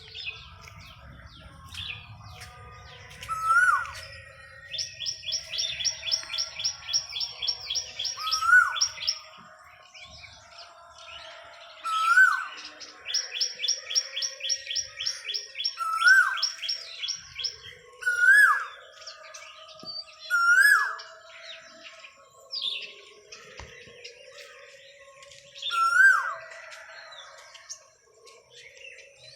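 Asian koel calling its rising 'kuhu' about seven times, a few seconds apart. Another bird gives fast, repeated high chirps in two long runs during the first two-thirds.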